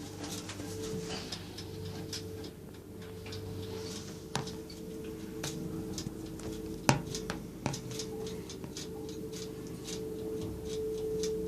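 Lift machinery running: a steady hum with a rapid, regular ticking and a few louder clicks.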